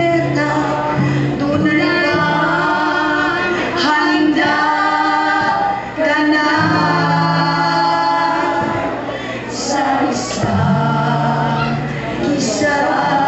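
Church choir of men and women singing a worship song together, holding long notes.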